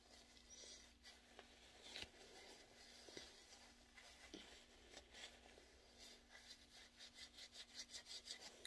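Faint rubbing and rustling of a paper tissue wiped across the lips, in soft repeated strokes that come quicker near the end.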